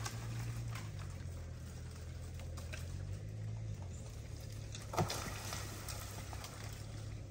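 Chevrolet Colorado pickup engine idling with a low, steady hum, with scattered light clicks and one sharper click about five seconds in.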